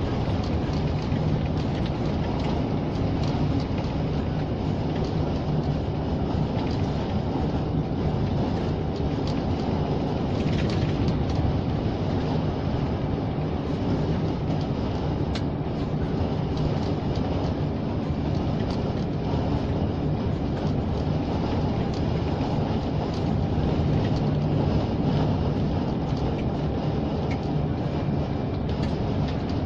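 Steady drone of a Scania truck's diesel engine and tyre noise, heard inside the cab while cruising on the highway.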